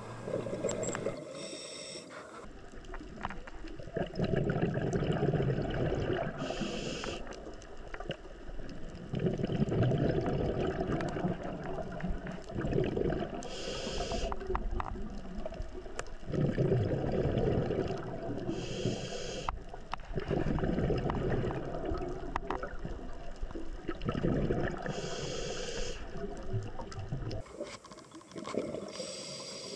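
Scuba diver breathing through a regulator underwater: four short hisses of inhaled air, each followed by a longer bubbling rumble of exhaled bubbles.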